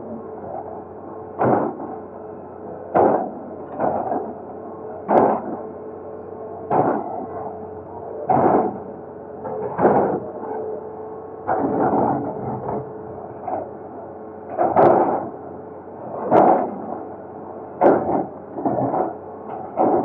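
Excavator demolishing a concrete bridge: its bucket strikes the structure over and over, a heavy knock about every second and a half, over the steady hum of its diesel engine.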